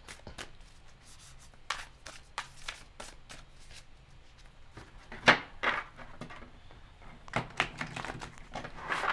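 Moon Child tarot deck being shuffled and handled: a run of soft card clicks and flicks, with sharper slaps about five and seven seconds in.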